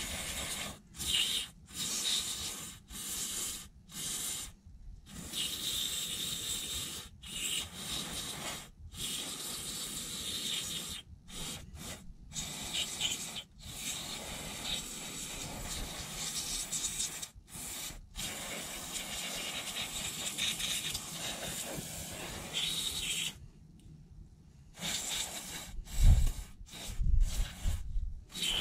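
Aerosol lubricant spray hissing through a straw nozzle onto a removed accelerator pedal assembly, in many short bursts and one long one, working the pivot of a throttle linkage whose cable had seized and held the throttle open. A low thump near the end.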